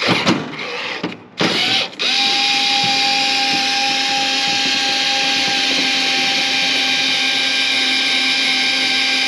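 Cordless power driver spinning off an 8 mm nut from a stud: two short bursts, then a steady motor whine from about two seconds in.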